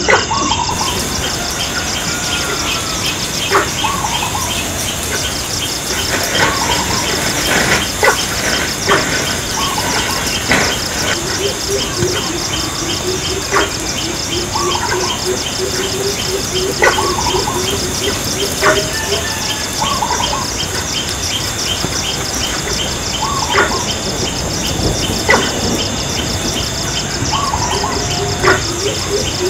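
Jungle ambience: insects trilling in a fast, even pulse throughout, with short bird calls repeating every couple of seconds and a few sharp clicks.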